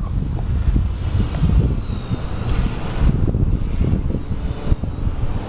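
Micro RC helicopter in flight: its Extreme Spin 16,300 kV brushless motor and rotor whine high, the pitch rising and falling as the throttle changes. Wind buffets the microphone underneath, and a short knock comes near the end.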